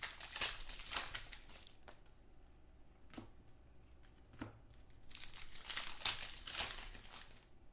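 Foil trading-card pack wrappers of 2014 Select Football packs crinkling and tearing open in the hands, in two bursts: one in the first two seconds and another about five seconds in, with a couple of light clicks between.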